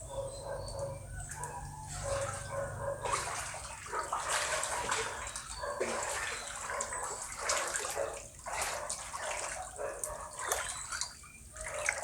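Floodwater in a flooded vegetable garden splashing and sloshing in irregular surges, from about three seconds in.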